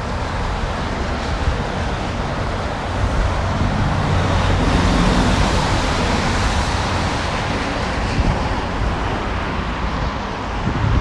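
Road traffic hissing by on wet pavement, the tyre noise swelling as a vehicle passes near the middle and then easing off, with wind buffeting the microphone as a low rumble underneath.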